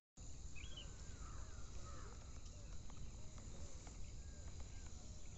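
Wetland ambience: birds calling with scattered short chirps and whistles over a steady low rumble.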